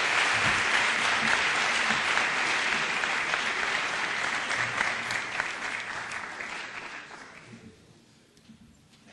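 Audience applauding, a dense round of clapping that thins out and dies away about seven to eight seconds in.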